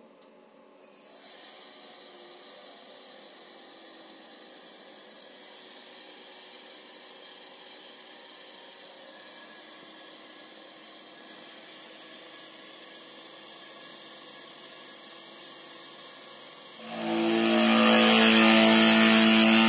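Chinese 2.2 kW air-cooled CNC spindle running with a steady high whine. About 17 seconds in, its bit plunges into a pine board and the sound turns much louder, a harsh cutting noise as it mills the wood.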